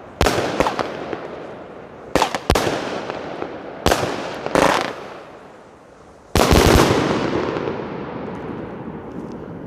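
The 'Buck Fever' consumer firework firing: sharp reports, each trailing off over a second or so. They come singly or in quick pairs about every one to two seconds, and the loudest and longest comes about two-thirds of the way through.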